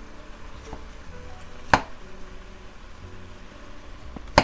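Wooden spoon stirring and breaking up softened cauliflower florets in a pot, knocking sharply against the pot twice, about two and a half seconds apart. Faint background music runs under it.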